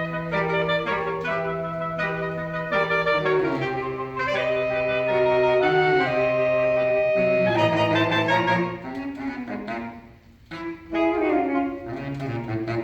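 Saxophone quartet playing: a held low note sounds under short repeated notes in the upper parts, the parts shift and swell about eight seconds in, and after a brief break near ten seconds the playing resumes.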